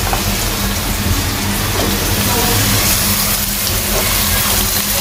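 Onion-tomato masala sizzling steadily in hot oil in a wok as cubes of bottle gourd go in, with a steady low hum underneath.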